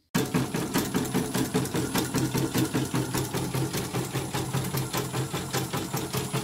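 Elnoss portable embroidery machine stitching, its needle mechanism clicking in a rapid, even rhythm. This is a test run after the stitching mechanism was cleaned and readjusted to cure the bobbin case jumping out of place.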